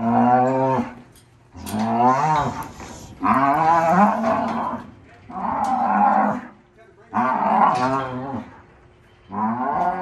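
Cattle mooing over and over: six long, loud bawls about a second each, one every one and a half to two seconds.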